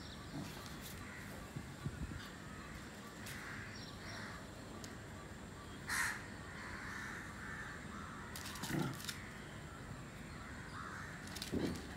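A few brief animal calls over a faint steady background, the loudest about halfway through, with two shorter, lower ones later.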